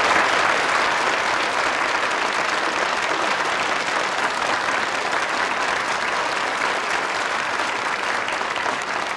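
Large audience applauding, dense steady clapping from many hands.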